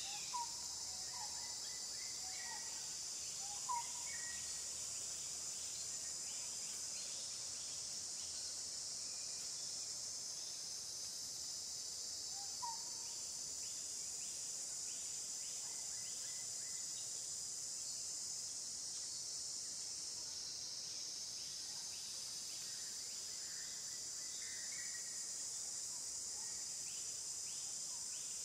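Steady high-pitched insect drone, with a few short chirps in the first few seconds and once more near the middle.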